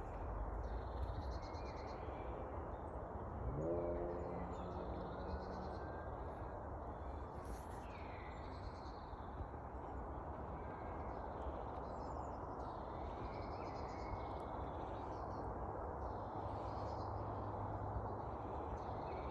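Wild songbirds singing in repeated short phrases over a steady low background rush. About three and a half seconds in, a low pitched call or hum rises and holds for about two seconds.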